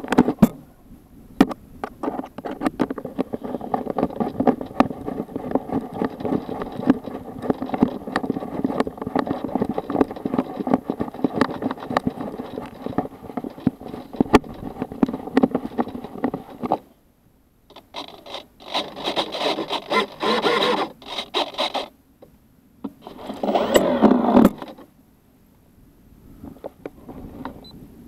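A small motor running with a steady hum, rattling and scraping, cutting out suddenly about seventeen seconds in. Two shorter, harsher bursts of running follow.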